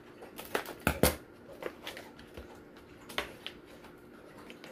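Scissors snipping through the wrapping of a rolled diamond-painting canvas. A few sharp cuts come, the loudest about a second in, with light rustling of the wrapping between them.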